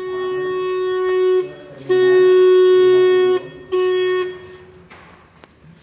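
Electric car horn (klakson), fed from a battery through a switch and relay, sounding three times at one steady pitch: two blasts of about a second and a half, then a short one. It is the test of a freshly wired horn circuit, and the horn works.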